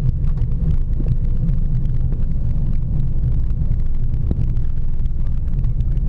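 Steady low rumble inside the cockpit of a Cessna Citation business jet during its landing, with a couple of faint knocks about a second in and again past four seconds.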